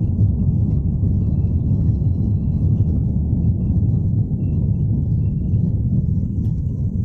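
Airbus A330 airliner's jet engines during takeoff, a steady low rumble.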